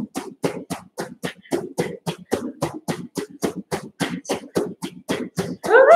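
Fists pounding a pillow in rapid alternation, an even run of soft thuds about five a second. Near the end, music with singing comes in.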